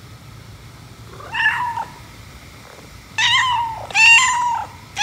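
Domestic cat meowing: one meow about a second in, then three more in quick succession near the end, the last the loudest.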